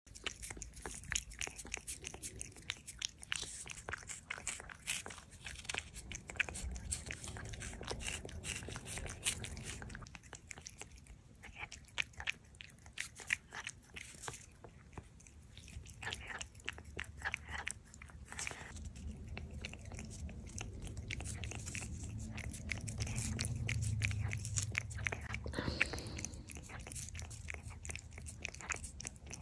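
A cat licking a wet lickable treat from a squeeze pouch: quick wet tongue clicks and lip smacks, many a second, with a few short pauses.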